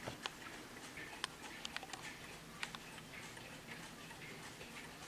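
Warmink pillar mantel clock's pendulum movement ticking faintly, with a few sharper ticks.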